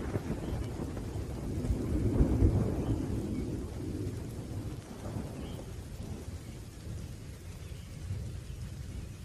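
Rolling thunder over steady rain: a low rumble that swells about two seconds in and slowly dies away, with a fainter rain hiss underneath.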